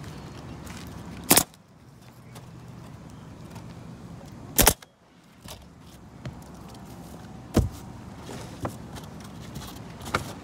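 Pneumatic roofing nail gun firing nails through asphalt shingles: three sharp shots roughly three seconds apart, followed by a couple of lighter knocks as shingles and tool are handled.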